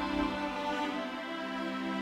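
Soft instrumental music: sustained string-like chords with no singing.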